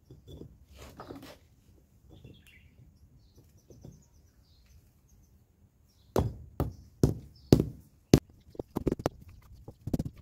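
Rubber mallet tapping an interlocking concrete paver down into its sand bed. About six seconds in come five firm knocks roughly half a second apart, followed by a quicker run of lighter taps.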